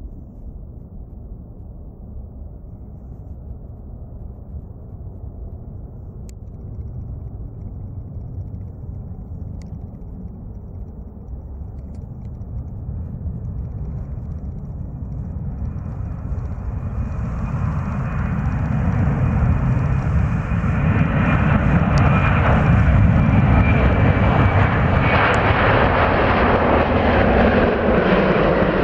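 Airbus A330 twin turbofan engines at takeoff power: a low rumble that grows steadily louder through the takeoff roll and liftoff, with a thin high whine joining in midway. The sound is loudest in the last third, as the jet climbs past.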